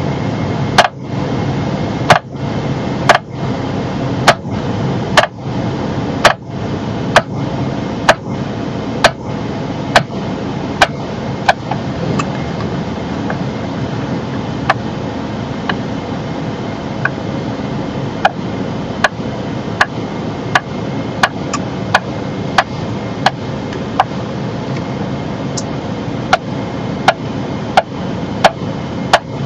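Toyota Harrier (ZSU60) steering column clicking sharply about once a second as the steering wheel is turned, over the steady hum of the car running. The clicking is typical of worn gears or bearings inside the steering column.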